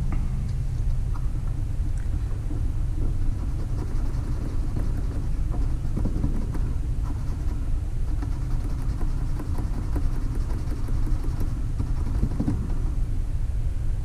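A fiberglass pencil scrubbing the electrical pickup contacts of an HO-scale model locomotive: faint scratching with small irregular ticks, busiest from about the middle to near the end. Under it, a steady low rumble.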